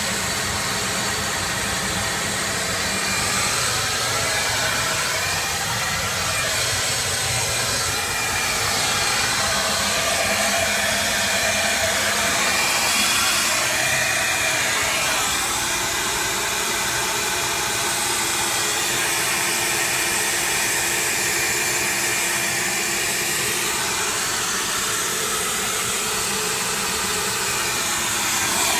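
Vacuum cleaner running steadily, a continuous rush of air through its hose with a faint even motor whine.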